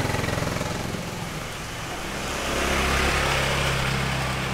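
Small motor scooter engines running as scooters pass close by. The loudest comes about three seconds in, as one overtakes and rides off ahead.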